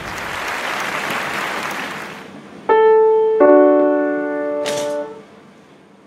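A soft rush of noise, then a grand piano sounds a single note and, just after, a fuller held chord with a short click in it; the chord stops abruptly about two seconds later.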